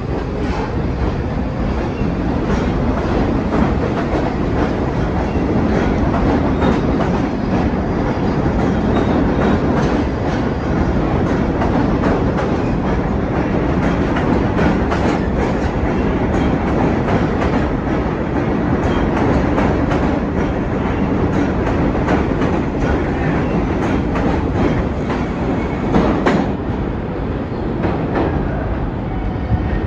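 Vintage New York City subway train running at speed: a steady loud rumble, with wheels clacking over rail joints throughout and one sharper clack near the end.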